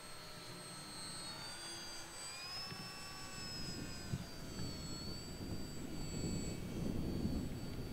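FMS T-28 Trojan electric RC plane's brushless outrunner motor and propeller whining in flight. The thin high tone rises, peaks and falls again as the plane passes, and a low rumble builds in the second half.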